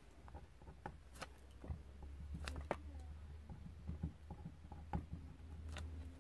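Faint, irregular scratches and light ticks of a ballpoint pen writing on paper, over a low steady hum that comes in about two seconds in.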